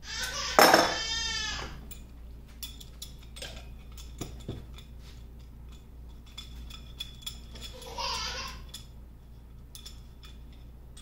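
A sharp metal clank together with a man's groan about half a second in, then scattered light clinks of steel hand tools being picked up and set down on a workbench, with another short groan about eight seconds in.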